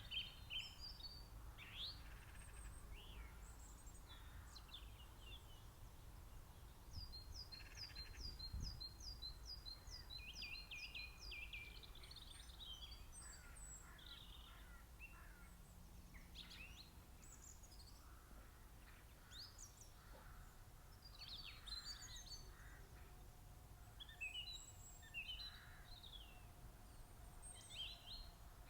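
Spring birdsong: several small songbirds singing and chirping. About seven seconds in, one bird gives a quick run of a dozen or so repeated notes. A faint low rumble runs underneath.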